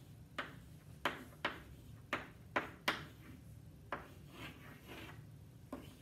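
Chalk writing on a chalkboard: about eight sharp chalk clicks and taps, unevenly spaced, with a few softer scraping strokes in between as numbers are written.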